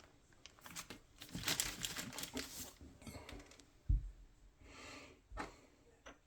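Crinkling and rustling handling noises, as of packaging or plastic being handled, then a dull knock about four seconds in and a short click near the end.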